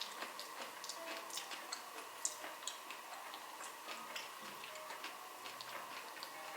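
Irregular light clicks and ticks, several a second, with one sharper click about two seconds in, over a faint steady hum.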